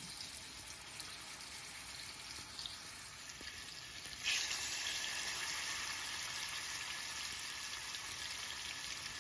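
Yogurt-marinated chicken thigh pieces sizzling in shallow hot oil in a frying pan. About four seconds in a second piece is laid in and the sizzle jumps louder and stays so.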